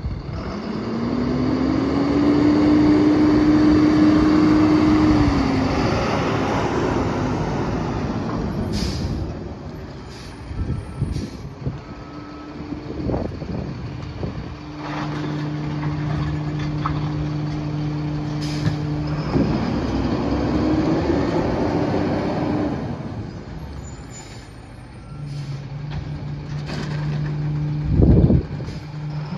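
Diesel engine of a Freightliner M2 rear-loader garbage truck pulling up, its pitch rising, then running at a steady speed while cans are emptied into the New Way Viper rear hopper. Air-brake hisses and knocks of cans come in between, with one loud knock near the end.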